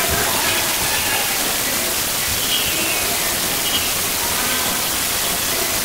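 Steady hiss like rushing water, with faint high children's voices chattering through it.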